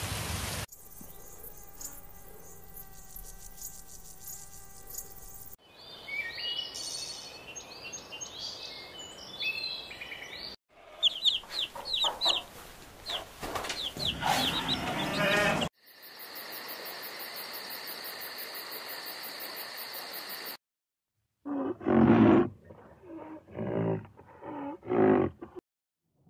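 A string of short animal sound clips cut one after another: a steady drone with held tones, high chirping, hen and chick calls, a steady buzz, then a few loud calls near the end, which are the loudest part.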